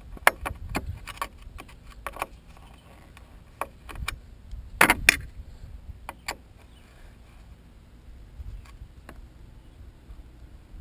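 Steel screwdriver tip scraping and clicking in the Phillips screw head of a 1975 Corvette's metal door-sill trim plate, as it digs out debris and tries to bite into a stripped head: irregular sharp metallic clicks, loudest about five seconds in.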